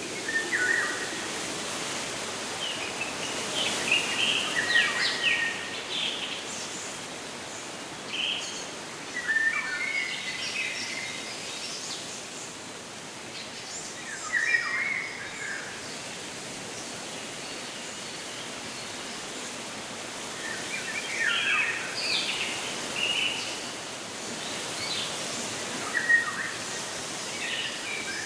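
Birds chirping and calling in short clusters every few seconds over a steady rushing background noise.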